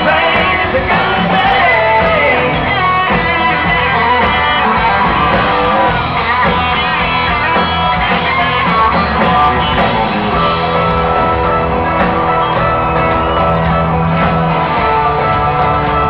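A live country band playing loud amplified music, with guitars prominent, heard through the concert sound system.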